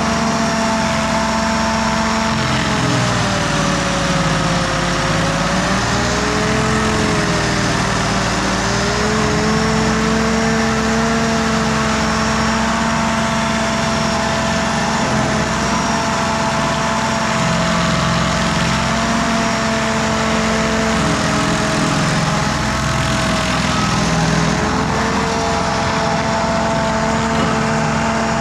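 Carlton SP6016TRX stump grinder running hard and grinding a stump, its engine note over a steady rush of cutting noise. The engine pitch sags and recovers a few seconds in as the cutter wheel takes load, then holds steady.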